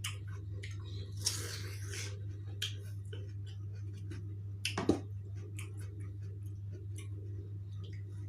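Close-miked eating of fresh watermelon: wet, squishy chewing with many small mouth clicks, a longer noisy bite or slurp a little over a second in, and a louder sharp bite just before five seconds. A steady low hum runs underneath.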